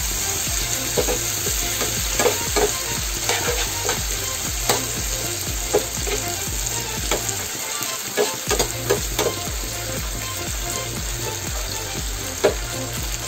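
Sliced onions and tomatoes sizzling in a frying pan, stirred with a slotted metal spatula that scrapes and clicks against the pan now and then.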